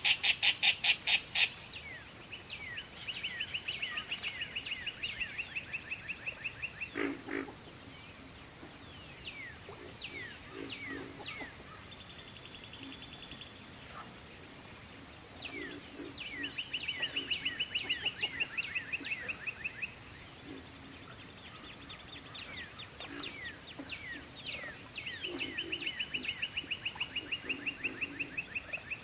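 Crickets chirping in a steady, high, unbroken chorus at twilight. Over it, birds sing trilled songs a few seconds long, three times, between quick downward-sliding chirps, with a few low, pulsing calls underneath.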